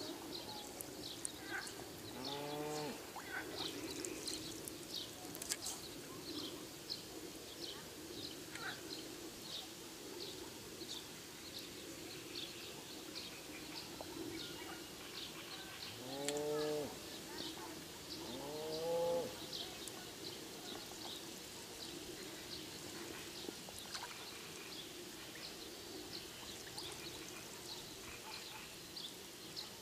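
A steady run of short, high chirps repeating throughout, with three short, low, pitched animal calls that rise and fall: one about two seconds in and two close together a little past the middle, which are the loudest sounds.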